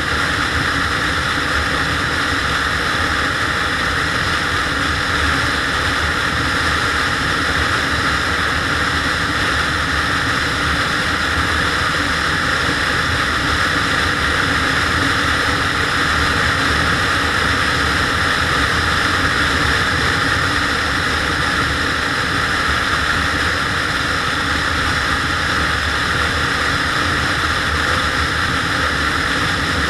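SYM Joymax GTS 250 Evo scooter's single-cylinder engine running at a steady cruise, mixed with constant wind rush and road noise. The sound holds even throughout, with no change in speed.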